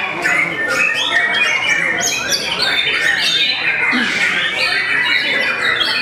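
White-rumped shama (murai batu) singing a fast, varied song of short whistled and chattering notes with no pauses, mixed with other birds singing at once.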